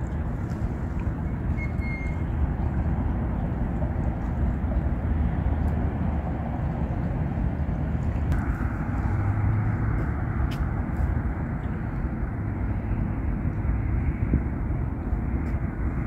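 Steady, even rushing of a flowing river, weighted low, with no distinct events.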